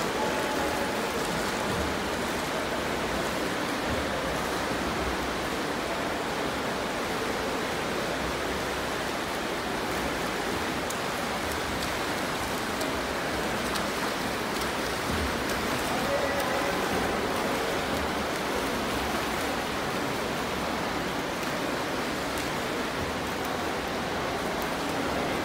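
Steady wash of splashing water in an indoor swimming pool as swimmers race front crawl along the lanes.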